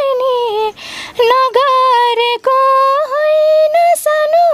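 A young woman singing unaccompanied, holding long notes with small slides between them and taking a breath about a second in.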